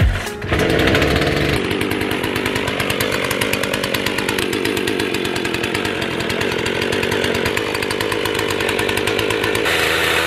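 Chainsaw running steadily under load, cutting through a log held in a sawhorse.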